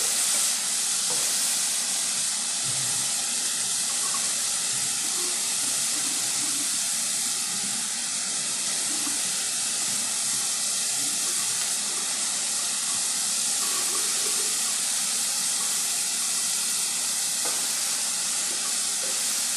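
Chopped vegetables frying in a pan, with a steady sizzle that holds evenly throughout.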